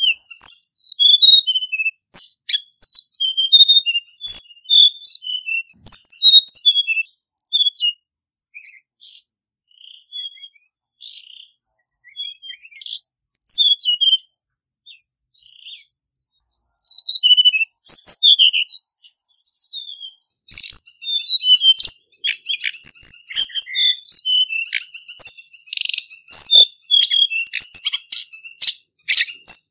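Male hill blue flycatcher singing: phrases of quick, high, sweet notes separated by short pauses, softer for a few seconds about a third of the way in.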